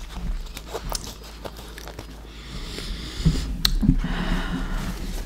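Close-up eating of soft macaroni and cheese: wet chewing with mouth smacks and small clicks, busier and louder in the second half.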